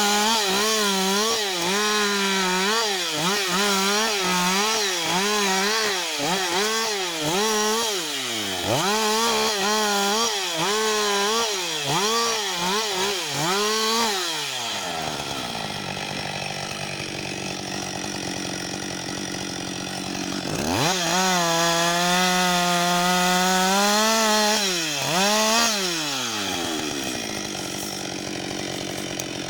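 Husqvarna 560 XP two-stroke chainsaw cutting through a fallen log at full throttle, its engine pitch wavering as the chain bites. About halfway through it drops to idle, revs up high again for a few seconds, then settles back to idle.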